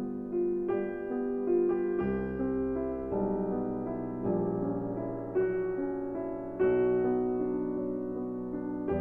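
Background music played on piano or electric piano: slow, sustained chords and notes, each struck anew every second or so.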